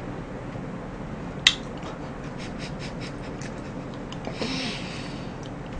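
Eating shaved ice (bingsu) with a wooden spoon: one sharp click about a second and a half in, then a run of faint clicks and mouth sounds, and a short breathy sound with a brief hum a little after four seconds. A steady hiss lies under it all.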